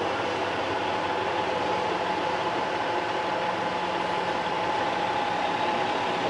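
Truck diesel engine idling steadily: a low hum with a steady whine above it.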